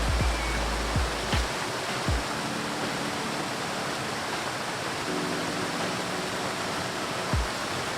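Background music: a calm ambient track with a rushing, hiss-like wash and a few held tones. Its deep bass drops out about a second and a half in and returns at the end.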